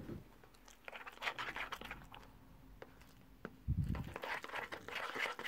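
Metal spoon stirring thick instant mashed potato in a plastic pot: soft sticky scrapes with small clicks of the spoon against the pot, and a dull low thump a little under four seconds in.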